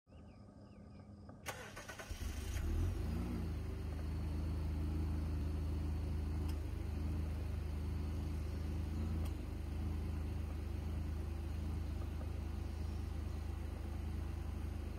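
2017 Honda Accord coupe's 3.5-litre V6 breathing through a Borla axle-back exhaust, starting up: it cranks about a second and a half in, catches and flares up in revs, then settles into a steady idle.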